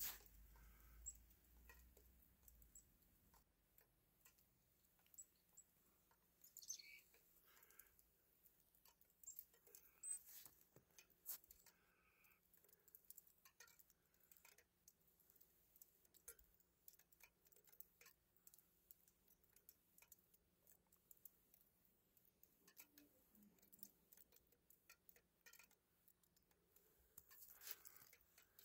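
Near silence with faint, scattered soft ticks and patter.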